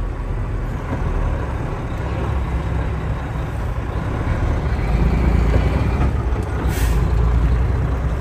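Heavy wrecker's diesel engine running at low speed, heard from inside the cab, getting louder about five seconds in. A short, sharp hiss of air from the truck's air brake system comes near the end.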